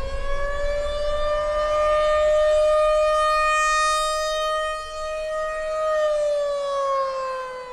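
Outdoor tornado warning siren sounding one long, steady wailing tone that finishes its wind-up in the first second and begins to wind down about six seconds in.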